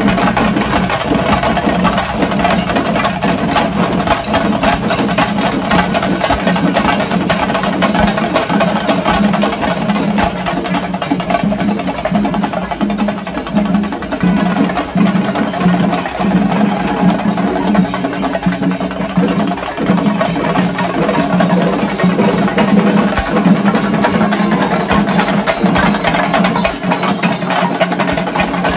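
Procession drumming: chenda drums beaten with sticks in a fast, continuous rhythm, with a steady drone underneath.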